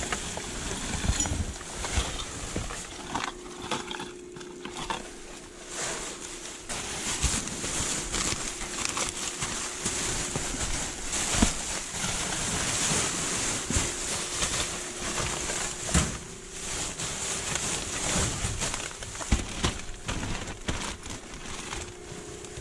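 Plastic garbage bags rustling and crinkling as they are handled and trodden on, with scattered knocks and thumps as the trash inside shifts.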